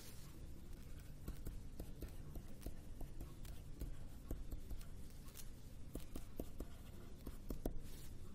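Faint, irregular taps and scratches of a stylus writing on a tablet, over a low steady hum.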